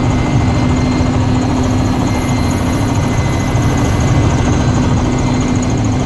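Helicopter turbine and rotor noise heard from inside the cabin: a loud, steady drone with a slightly pulsing low rumble and a constant hum over it.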